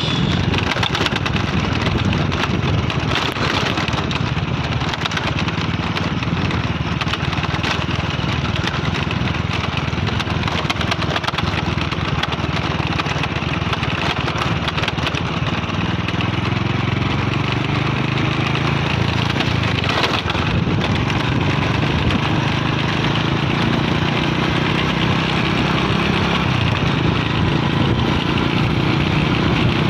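Small motorcycle engine running under way with a loud, crackly rattling noise over it, the strange sound the bike has started making. About 16 seconds in, the engine note climbs as it speeds up.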